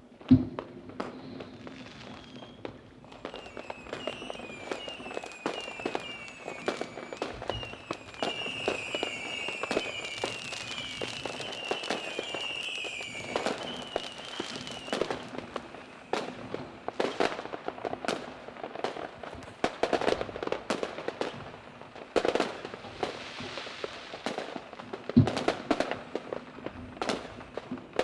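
Fireworks going off: a steady stream of bangs and crackling pops, with a run of repeated falling whistles for the first half. The loudest single bangs come just after the start and near the end.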